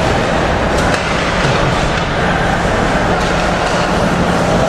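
Steady din of an indoor ice hockey rink during play, with a low hum underneath and a few faint clicks.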